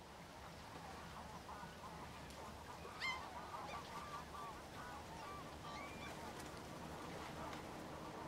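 A flock of birds calling: many short overlapping calls, fading in from silence, with one sharper upward-gliding call about three seconds in.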